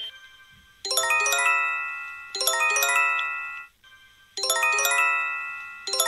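Japanese emergency alert chime: quick rising runs of bell-like notes, each left ringing and fading, played four times in two pairs.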